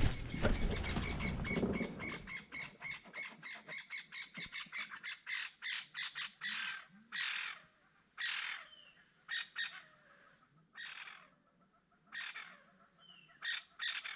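A bird calling a long series of harsh, caw-like notes, quick at first and then slowing until they come singly, more than a second apart.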